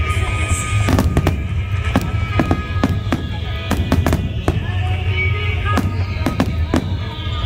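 Fireworks display: aerial shells bursting with about a dozen sharp bangs at irregular intervals, over music and a steady low rumble.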